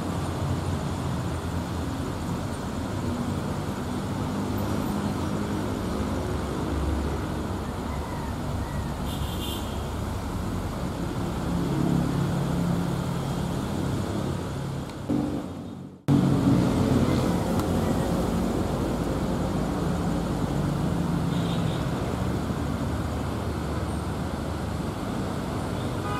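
Motorcycle engines and road traffic, with engine sounds swelling and fading as bikes pass. The sound fades and cuts off abruptly just past the middle, then comes back straight away.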